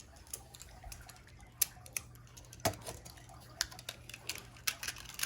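Scattered light plastic clicks and taps from a Beyblade Burst top being handled, about eight irregular clicks over a few seconds.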